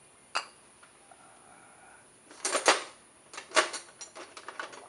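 Metal tools and small carburettor parts being handled on a hard work surface: a sharp knock about a third of a second in, a loud clatter about halfway, then a run of lighter clinks.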